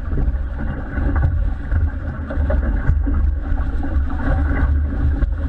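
Motorboat running, a steady low engine drone mixed with wind buffeting the microphone and the rush of water.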